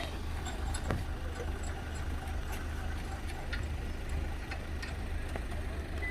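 A vehicle engine running steadily at idle, a low rumble, with scattered light clicks over it.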